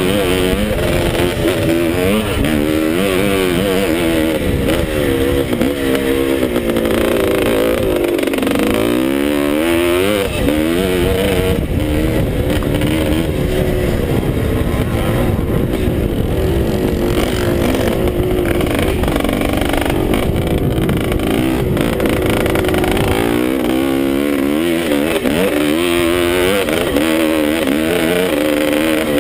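Montesa Cappra two-stroke single-cylinder scrambler engine under race throttle, heard from the rider's helmet. Its pitch rises and falls over and over as the throttle is opened and shut around the track.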